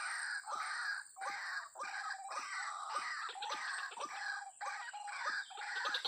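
White-breasted waterhen calling: a repeated 'ruak' call, about two a second, on and on without a break.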